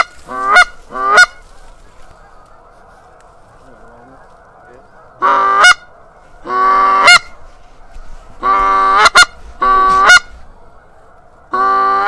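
Short-reed goose call blown by a hunter to bring in Canada geese: three quick honks at the start, then after a pause a run of longer honks and clucks, several ending in a sharp click.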